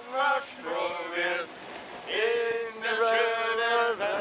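Men singing a song; about two seconds in, one long note is held for nearly two seconds.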